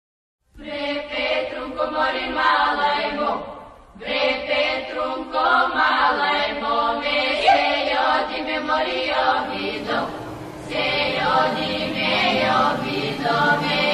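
Recorded song opening with chant-like choral voices over music, starting about half a second in, with a short break just before four seconds.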